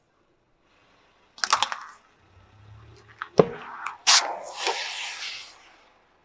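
A car tyre crushes a small aerosol can of foam. There are a few crackles, then a sharp crack about three and a half seconds in. Half a second later the can bursts with a loud pop and sprays foam with a hiss for about a second and a half.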